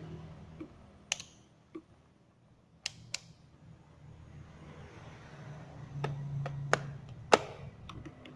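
Several sharp clicks and knocks of equipment being handled, the loudest a little after seven seconds, over a low steady hum.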